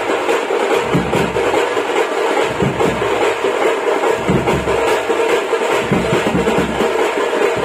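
A Tamil thappattai (parai) frame drum and large stick-beaten bass drums played together in a loud, dense, unbroken drum rhythm.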